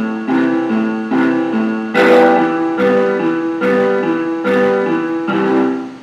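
Piano playback from notation software: a broken-chord accompaniment in steady eighth notes under held triads, moving from an A minor to an E minor chord. The loudest attack, the start of the new chord, comes about two seconds in. The music fades out near the end as playback stops.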